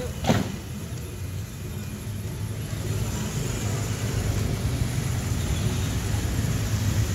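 Small electric RC 4x4 trucks, an MN99S and a WPL C24, driving over grass, heard over a steady low rumble. A brief sharp sound comes just after the start.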